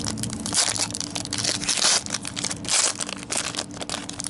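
Foil trading-card pack wrapper being torn open and crinkled by hand: a dense run of irregular crackles and rips.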